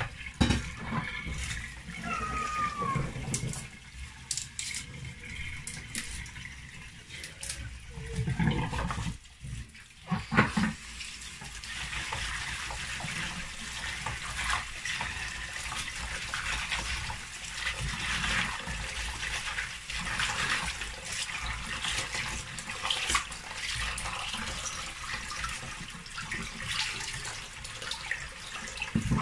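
Kitchen tap running into a plastic tub of chopped kale in a stainless steel sink, water splashing and sloshing as a hand swishes the leaves to rinse them. The flow dips briefly about nine seconds in.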